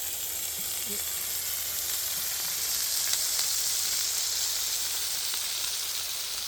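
A steady, even sizzling hiss with a few faint ticks.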